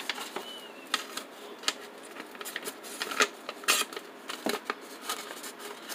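Several irregular sharp clicks and snaps as a blue-handled Kobalt hand cutter is worked, its jaws snapping shut, with paper being handled and set down.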